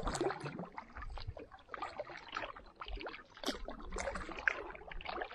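Canoe being paddled: the paddle dips into calm water with small irregular splashes, and water trickles and drips off the blade.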